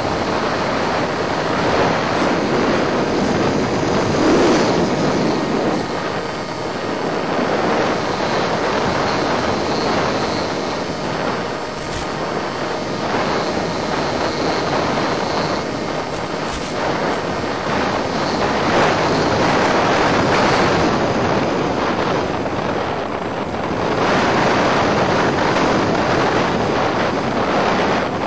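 Steady rushing airflow noise on the onboard microphone of an EasyStar FPV model plane in flight. It swells and eases a little as the plane manoeuvres.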